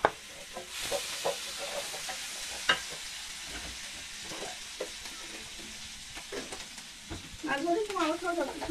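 Fish curry sizzling in a nonstick pan while a wooden spatula stirs and scrapes through it, with scattered taps and one sharp knock nearly three seconds in.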